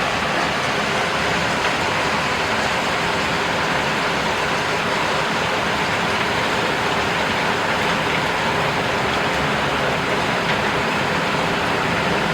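Heavy rain pouring down in a thunderstorm, a steady dense hiss with no thunderclaps.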